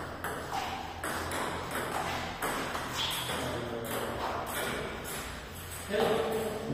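Table tennis ball clicking off the bats and the table in a rally, about two hits a second. Voices come in near the end.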